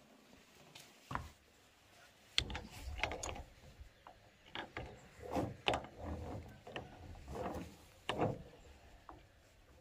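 Irregular metal clicks and short grating creaks as a motorcycle muffler is twisted by hand against slip-joint pliers gripping its rusty inlet pipe in a bench vise. The clicks start about two and a half seconds in and stop near the end, with a single knock before them.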